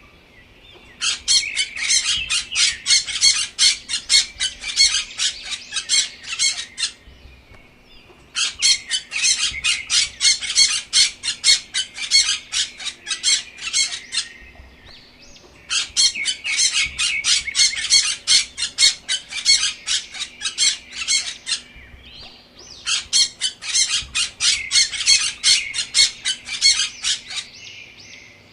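A bird's rapid chattering call: runs of quick, sharp, high notes about six seconds long, sounding four times in near-identical form with fainter high calls between them.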